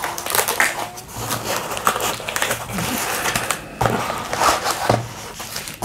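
Cardboard box flaps and a bubble-wrapped package being handled, with irregular rustling and crinkling crackles of plastic and cardboard.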